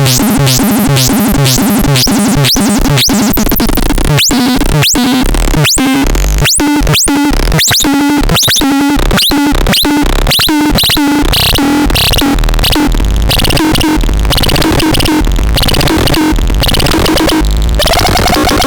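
Electronic synthesizer playing a harsh, noisy sequence: a fast train of sharp rising sweeps over a repeating low note, turning into a dense, stepping buzz of noise and low tones about halfway through.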